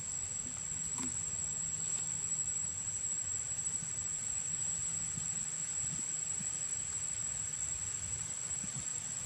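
Insects calling in a continuous, unbroken high-pitched whine that holds one steady pitch, over a low background rumble.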